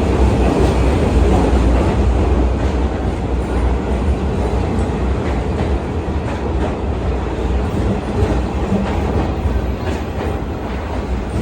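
New York City subway N train rolling along a station platform: a heavy steady rumble with wheels clacking over the rail joints, easing slightly toward the end as the train slows.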